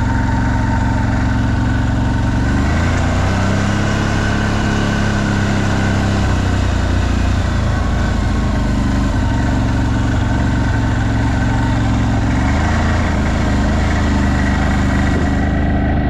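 CFMOTO 1000's engine running steadily while driving, its note shifting up and down a couple of times with speed.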